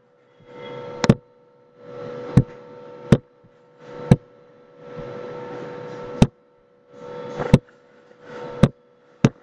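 Computer mouse clicking about eight times, single sharp clicks roughly a second apart. Between the clicks there is a faint hiss with a steady hum that comes and goes.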